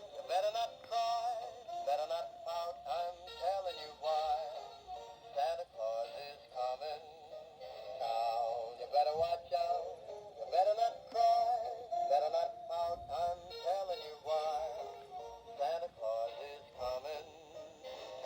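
Animated Santa Claus toy singing a Christmas song through its small built-in speaker: a thin, high-pitched sung melody with no bass, playing steadily. The toy is working again after a repair.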